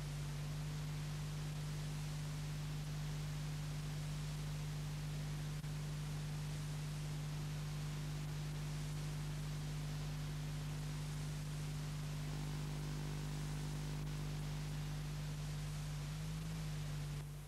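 Steady low electrical hum with an even background hiss, the bare soundtrack of a silent film transferred from old video tape.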